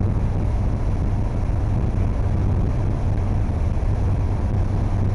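Boat engine running steadily: a low, even hum under a constant rushing noise.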